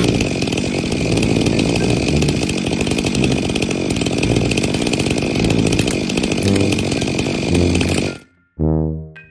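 Loud power tool, likely a saw, running hard with a steady high whine for about eight seconds, then cutting off suddenly. A short pitched musical note follows near the end.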